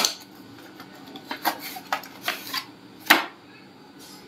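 A helmet mount's package being opened and its hard plastic parts handled: a sharp click at the start, a few light knocks and a brief rustle, then a loud clack about three seconds in.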